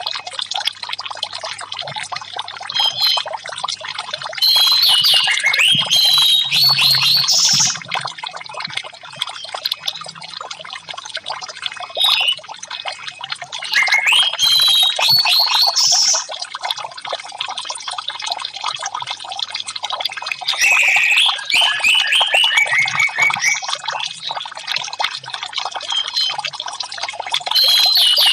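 Orange-headed thrush singing in loud bursts of fast, varied high phrases several seconds apart, over a steady trickle of running water. It is a song track played to get silent captive orange-headed thrushes singing.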